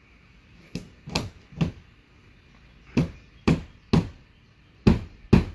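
Eight sharp hammer blows in three quick groups of three, three and two, each group's strikes about half a second apart.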